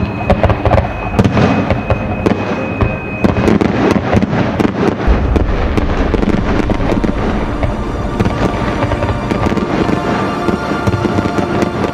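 Fireworks going off in rapid bangs and crackles, with music playing under them.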